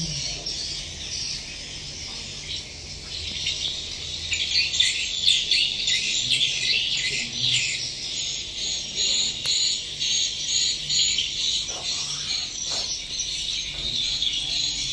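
Edible-nest swiftlets twittering inside a swiftlet house: a dense, continuous stream of high chirps that grows louder and busier about four seconds in.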